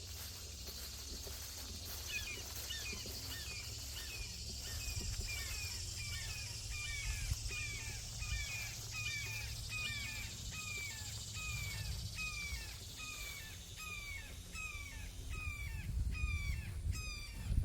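A bird calling over and over, a long even series of short downward-slurred calls about two a second, starting about two seconds in. A steady high insect hiss sits behind the calls and fades out midway.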